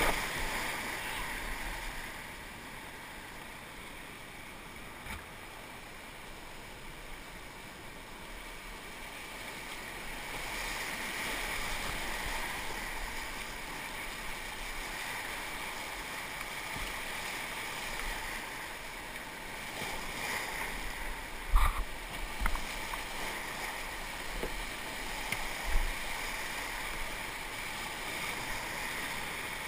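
Whitewater rapids rushing around an open canoe, a steady noise of moving water that swells and eases as the boat runs the drops. A few sharp knocks stand out in the last third.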